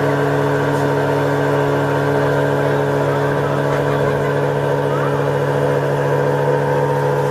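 Boat motor running at a steady, unchanging pitch, a constant drone.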